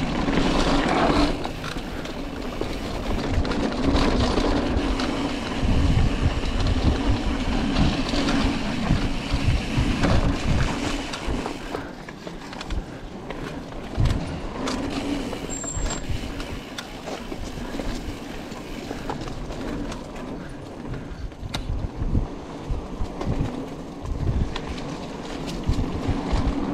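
Bicycle riding fast over a rough dirt trail: steady rolling rumble from the tyres with frequent irregular knocks and rattles from the bike.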